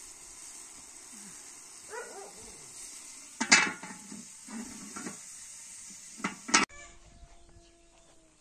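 Rice sizzling in a cast-iron cauldron with a steady hiss, and its metal lid clanking as it is set down on the pot about three and a half seconds in, with a second clank near six and a half seconds. After that the hiss stops and a hen calls faintly.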